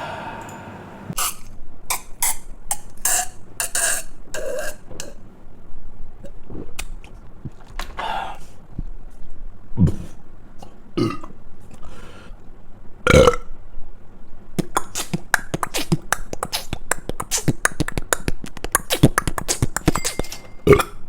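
A man burping over and over, a long run of short belches with brief gaps. They come faster and closer together over the last several seconds.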